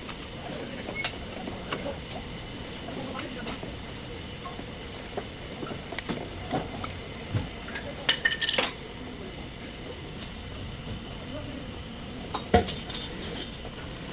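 Metal tools and parts clinking and clattering, with a quick cluster of sharp ringing metallic clinks about eight seconds in and another near the end.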